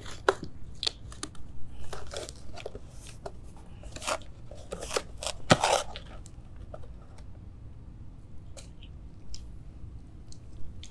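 Things being handled on a tabletop: a run of small clicks, taps and rustles, with one sharp knock about five and a half seconds in, then only a few faint ticks.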